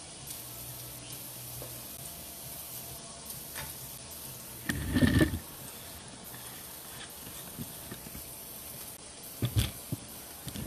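Diced onion and bell pepper sizzling steadily in a frying pan over a gas flame. A loud knock and rustle about five seconds in, and a shorter knock near the end, stand out over the sizzle.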